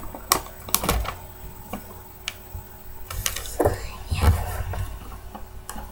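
A sheet of paper being folded and creased by hand: short crinkles, taps and rustles as the folds are pressed down, several separate crackles a second or so apart.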